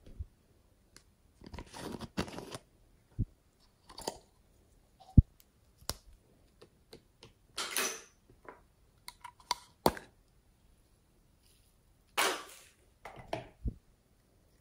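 Hands handling small plastic toy-shaped containers: caps twisting open with short scraping rasps, plastic clicks and taps, and a few sharp knocks.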